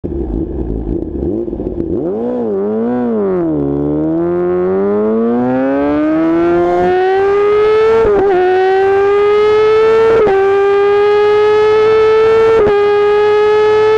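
2014 Kawasaki ZX-10R inline-four through a straight-piped Akrapovic exhaust at full throttle. After a short low idle the throttle is blipped twice. On the launch the engine note rises steadily for several seconds, then come three quickshifter upshifts about two seconds apart, each a short sharp crack with a small dip in pitch before the note climbs on.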